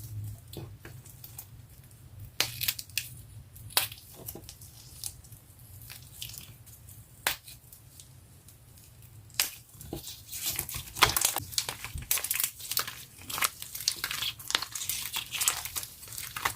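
Slime being squished and stretched by hand, giving sharp crackles and pops, scattered at first and much denser from about ten seconds in.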